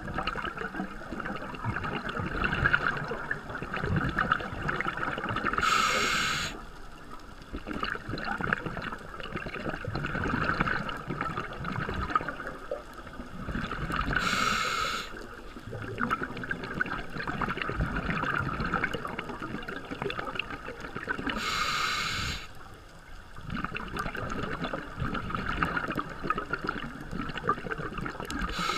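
Scuba diver's regulator breathing underwater: a short hissing breath about every eight seconds, three times, with bubbling and gurgling in between.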